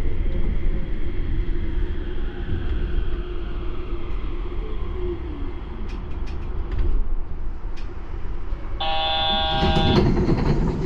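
Running noise of a Yurikamome rubber-tyred automated guideway train: a steady rumble with a low hum. Near the end, a tone rich in overtones sounds for about a second.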